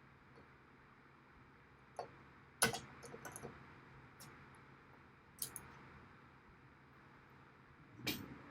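Scattered clicks and knocks of parts being handled and set down, the loudest about two and a half seconds in, over a steady low hum.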